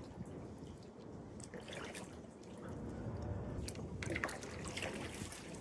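Kayak paddle strokes in river water: the blade dipping and splashing a few times, with water dripping and trickling off it between strokes.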